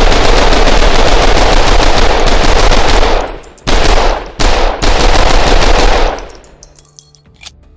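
Uzi submachine gun firing on full automatic: one long burst of about three seconds, then a short burst, then another burst of about a second and a half that dies away into echo.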